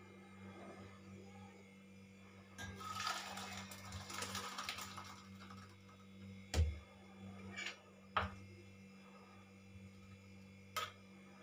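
Liquid hissing and sizzling on the hot gas-stove top for about three seconds, followed by a few sharp clanks of steel pots and utensils, the loudest about six and a half seconds in.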